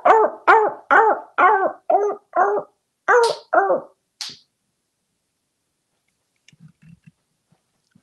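African grey parrot imitating a seal's bark: a quick run of about eight short barking calls, roughly two a second, then a brief high hiss a little after four seconds in. A few faint clicks follow near the end.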